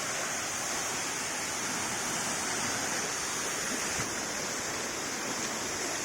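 Small waterfall of spring water pouring down, a steady, even rush of falling and splashing water.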